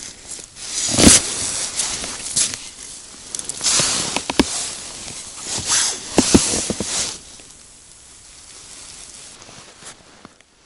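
Rustling and crunching of a winter jacket and snow close to the microphone as the angler moves his arms, in several noisy bursts with a few sharp clicks, dying down after about seven seconds.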